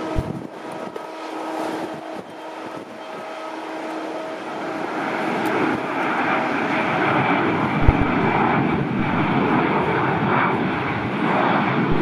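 Airbus A320 jet engines on the landing rollout: a roar that swells from about four seconds in and then holds loud. A couple of low thumps come near the start and about eight seconds in.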